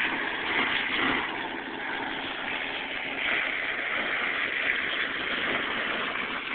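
Small two-bladed helicopter flying low just after lift-off, its engine and rotor running steadily.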